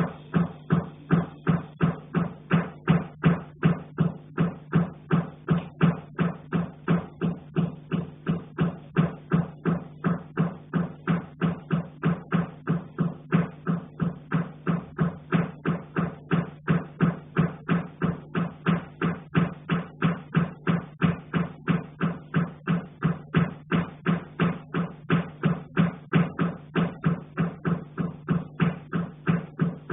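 Repeated knocking on a pipe, heard through the building: sharp strikes at an even pace of about two and a half a second, each with a low ringing note.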